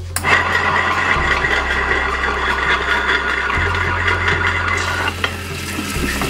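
Tabletop wet grinder running, its stone rollers turning in the steel drum and grinding freshly added soaked urad dal with a steady scraping, churning noise. It starts abruptly just after the beginning and eases a little near the end.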